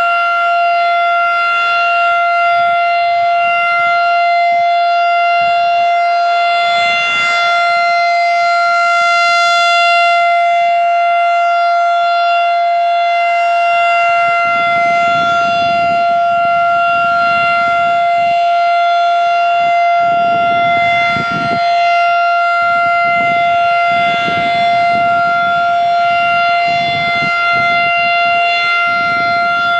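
Federal Signal 2001-SRN outdoor warning siren sounding a steady tone at full speed, holding one loud, unwavering pitch.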